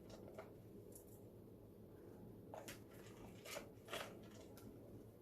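Faint, scattered soft clicks and squishes of hands kneading slime with beads mixed in, over quiet room hum.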